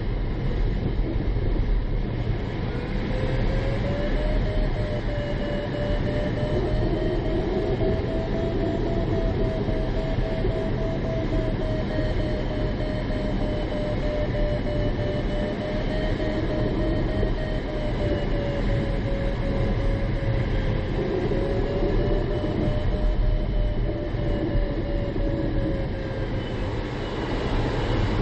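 Steady rushing and rumbling airflow noise inside the cockpit of an ASW 20B sailplane circling in a thermal. A single tone that wavers slightly in pitch comes in about three seconds in and fades out near the end.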